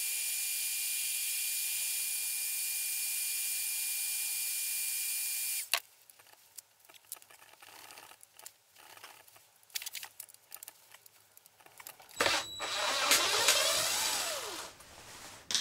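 A Black & Decker heat gun blows with a steady hiss and whine for about six seconds, heating a seized screw to loosen it, then switches off with a click. Quiet handling clicks follow. Near the end, louder than the rest, a DeWalt cordless impact driver runs for about three seconds, its pitch rising and then falling.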